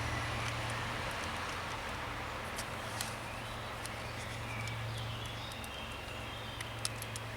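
A few faint, scattered clicks and small scrapes of a screwdriver driving small screws back into the plastic window-switch housing, over a steady low hum.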